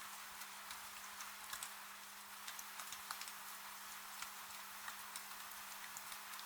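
Steady rain hiss with individual drops ticking irregularly, several a second, as they hit a hard surface. A faint steady low hum runs underneath.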